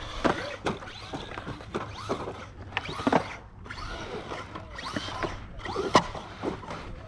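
ARRMA Outcast 4S RC truck's brushless electric motor whining, rising and falling in pitch as it speeds up and slows on dirt, with several sharp knocks from the truck hitting the ground, the loudest about six seconds in.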